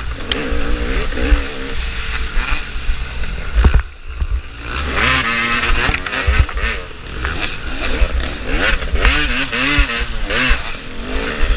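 Dirt-bike engine revving hard up and down as the bike is ridden over a rough woodland trail, with knocks from the terrain. The engine note dips briefly about four seconds in, then picks up again with quick rising and falling revs.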